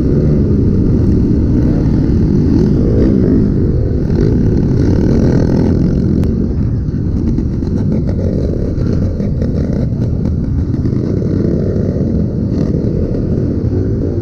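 Kawasaki KLX dirt bike's single-cylinder four-stroke engine running through its stock exhaust under riding load, its pitch rising and falling as the throttle opens and closes.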